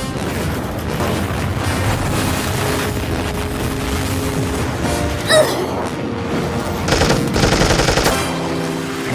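Music with machine-gun fire and booms mixed over it. A short, loud sliding sound comes about five seconds in, and a rapid burst of gunfire follows near the end.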